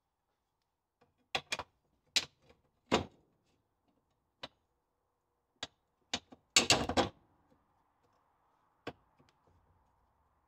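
Steel leaves of a Land Rover Series 2 front leaf spring knocking against one another as they are stacked and lined up by hand on a centre bolt. There is a string of separate sharp knocks and a louder burst of clatter about seven seconds in.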